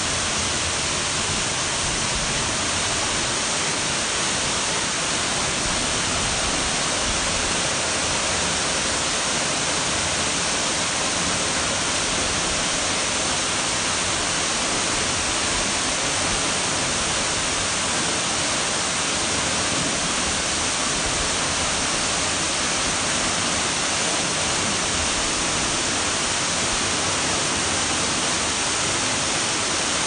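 Slender waterfall splashing into a shallow pool: a steady, even rush of falling water, brightest in the upper range.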